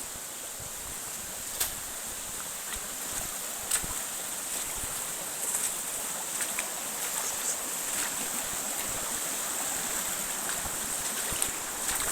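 Steady rushing of a waterfall's falling water, with a few faint clicks over it.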